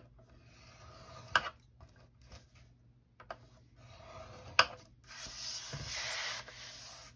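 Stylus drawn along the grooves of a plastic Simply Scored scoring board, scoring cardstock: soft rubbing scrapes, with a sharp click about a second and a half in and another just past halfway, then a longer, louder scrape near the end.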